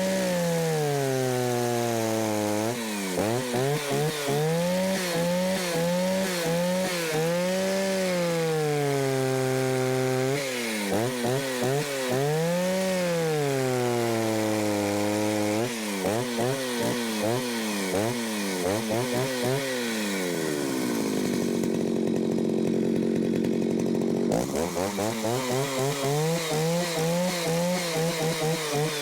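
Jonsered 801 two-stroke chainsaw, fitted with a 32-inch bar and skip-tooth chain, running and revved up and down over and over as it is tuned. Past the middle it is held at a steady speed for a few seconds, then revved again.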